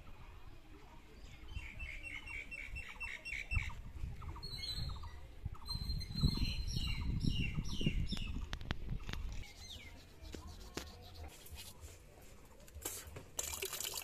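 Small birds chirping in quick repeated series over a low rumble that is loudest midway. Near the end a tap starts running.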